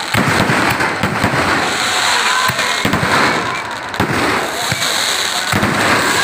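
Fireworks going off: a rapid, unbroken run of overlapping bangs and crackling from bursting shells and firecrackers.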